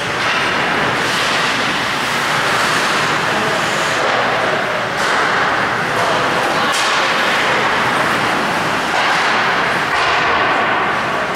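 Ice hockey game in a rink: steady noise of skates and play on the ice, with two sharp knocks about five and seven seconds in.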